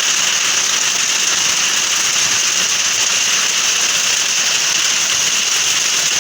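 Heavy rain of a hailstorm pouring down in a steady, dense hiss.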